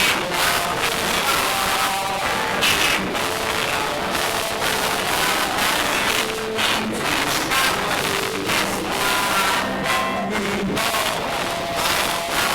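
Music with singing and many short, sharp beats, over the noise of a room full of people.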